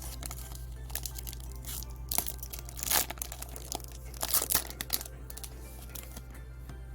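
Foil trading-card pack wrapper being crinkled and torn open by hand, in irregular crackles with a sharper burst about three seconds in.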